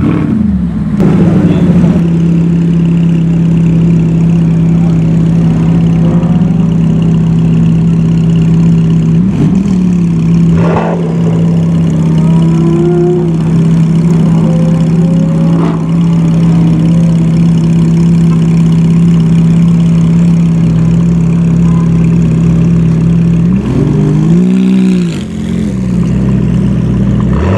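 A supercar's engine idling at a high, steady pitch, then blipped once near the end in a short rev that rises and falls.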